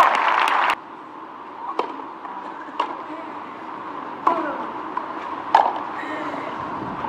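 Crowd voices and noise that cut off abruptly, then a tennis rally on clay: four sharp racket-on-ball hits a second or so apart over a faint background murmur.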